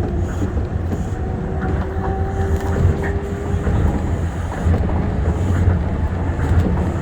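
Tokyo Monorail 1000-series rubber-tyred monorail train running at speed: a steady low rumble with a faint whine for a couple of seconds early on.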